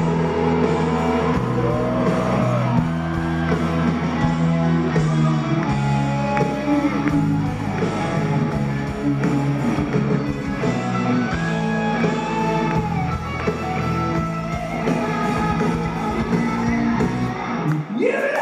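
Live rock band playing, heard from the audience in a hall: sustained electric guitar and bass chords over drums, with a few bending guitar notes.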